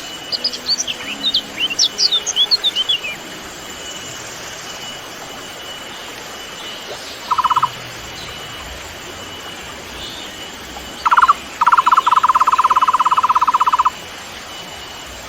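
Wild birds calling: a run of quick high chirps and short down-slurred whistles for the first three seconds, then a brief rapid trill, and later a longer rapid, even trill lasting about three seconds. A faint steady high tone and a background hiss sit under it throughout.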